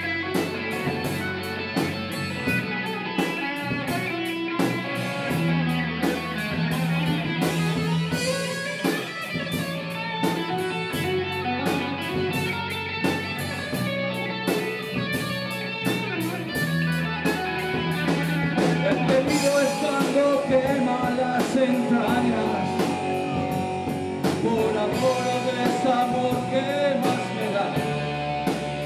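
Live rock band playing an instrumental break: an electric guitar lead line over bass guitar and drum kit.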